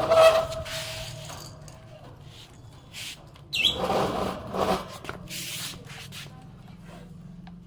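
Pet budgerigar chirping, with a short falling chirp and scattered rustling noises between the calls.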